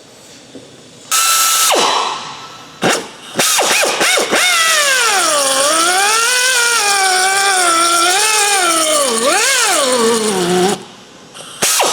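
Drill boring out the stem lock in the centre of a Cherry Max blind rivet: a short run about a second in, a few brief bursts, then a long run of about seven seconds whose whine wavers up and down in pitch as the bit cuts, stopping sharply near the end, with one more brief burst just before the end.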